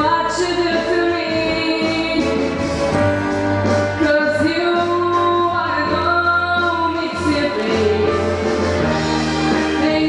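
Young woman singing a song solo into a handheld microphone over musical backing, her voice holding and bending sustained notes over a steady bass accompaniment.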